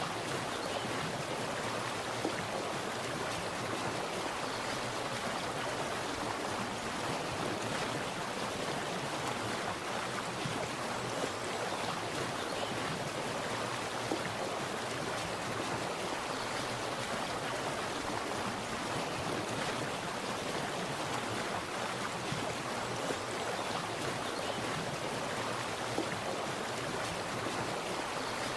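Water splashing and running steadily, like a small stream or cascade, with a continuous even rush.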